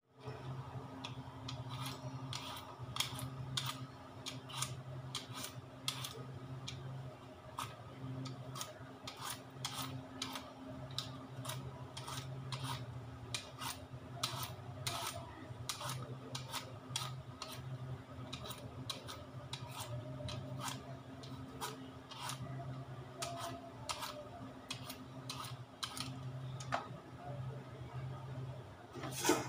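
Y-shaped vegetable peeler scraping the skin off a potato in quick, repeated strokes, a couple a second, over a steady low hum.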